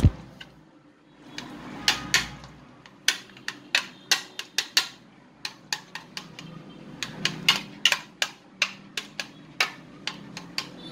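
A run of irregular sharp clicks and taps, two or three a second, starting about a second and a half in, over a faint low hum.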